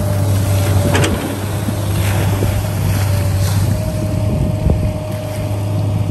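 A small engine running steadily with a low, unbroken hum, with a few brief knocks about a second in and again near five seconds.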